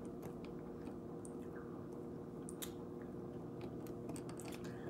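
Faint, irregular wet mouth clicks and lip smacks from a person tasting a mystery drink, over a steady low hum.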